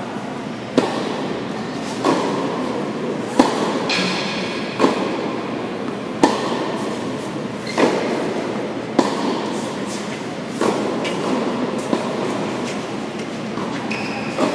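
Tennis ball struck by rackets in a rally: a serve about a second in, then about ten sharp hits roughly every second and a half, each ringing briefly in the large indoor hall, over a steady hall noise.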